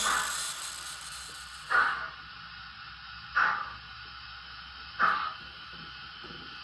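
Steam locomotive chuffs from a model's Zimo sound decoder with YouChoos sounds, played through the model's small speaker: single short chuffs about every 1.7 s over a faint steady hiss, the slow beat of the locomotive crawling at very low speed.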